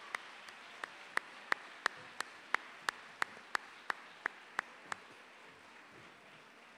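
A man clapping his hands close to a microphone: sharp claps about three a second that stop about five seconds in. Softer applause from the audience sits behind them and fades away.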